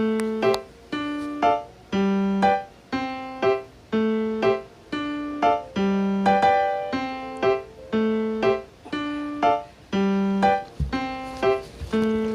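Background music: a piano-like keyboard playing short, evenly spaced notes, about two a second, each fading before the next.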